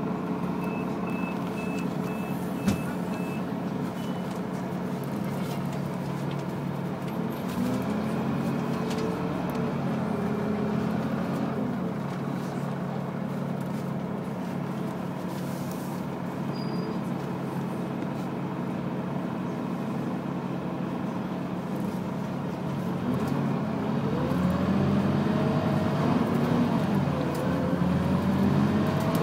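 Steady running hum inside a moving passenger vehicle, with a quick row of about six short high beeps in the first few seconds. The hum grows louder and wavers in pitch over the last few seconds.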